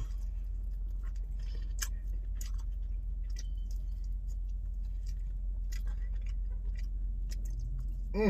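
A person chewing and biting chicken wings, with scattered small wet clicks and smacks over a steady low hum. A short voiced murmur comes at the very end.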